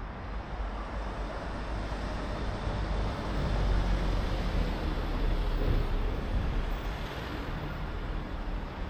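Road traffic, with a vehicle going by: a steady rumble that grows louder from about three seconds in and fades again near seven seconds.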